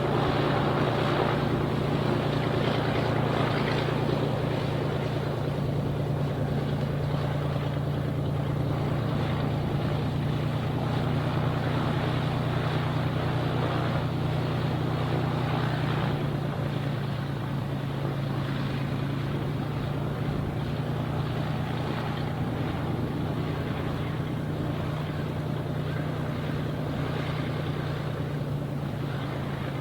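Cessna T210N Turbo Centurion's turbocharged six-cylinder piston engine and propeller running at a steady speed, with an even low drone whose pitch does not rise or fall.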